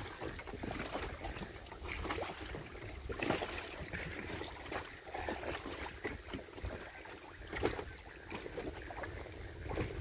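Wind buffeting the microphone and choppy lagoon water lapping and slapping against a small boat's hull, in irregular splashes over a steady low rumble.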